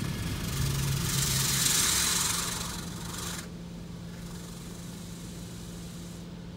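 High-pressure water spray from a Mark VII touchless car wash hissing against the car, heard from inside the cabin. It swells and then cuts off abruptly about three and a half seconds in, leaving a fainter hiss and a steady low hum.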